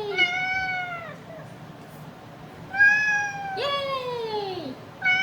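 Domestic cat meowing: three long drawn-out meows, each dropping in pitch at the end, with a fourth beginning right at the end.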